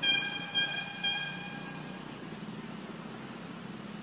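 A high, steady-pitched ringing tone struck three times in quick succession, about half a second apart, each stroke fading away over a second or so, over a faint steady background hum.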